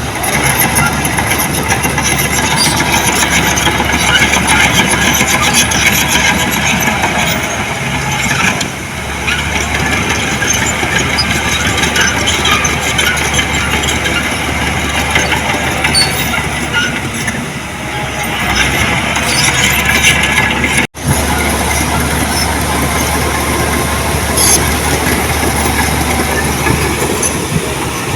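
Diesel engines of heavy earthmoving machinery running steadily, with a momentary cut-out of the sound about 21 seconds in.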